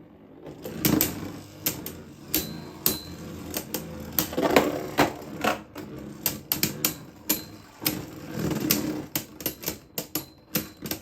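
Beyblade Burst spinning tops, Zest Achilles among them, clashing in a plastic stadium. A dense, irregular run of sharp plastic clicks and clacks over a faint whirr of spinning.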